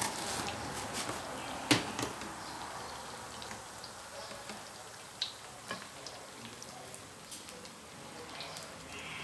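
Slices of bread topped with minced pork frying in very hot oil in a steel wok, sizzling steadily with scattered crackles and pops. One sharp click stands out a little under two seconds in.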